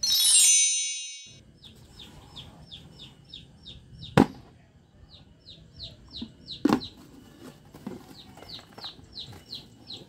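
A bright shimmering chime, a sparkle sound effect, for about the first second. Then a bird chirps on and on in short, high, falling notes, two or three a second. Two sharp crackles of paper come about four and seven seconds in, as a hand picks at a paper sticker.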